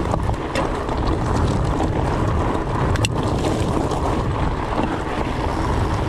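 Wind buffeting the microphone over the rumble of a fat bike's 26x4.8 in. Maxxis Colossus tyres rolling fast down rocky single track, with a few sharp clicks and rattles from the bike over stones, the loudest about three seconds in.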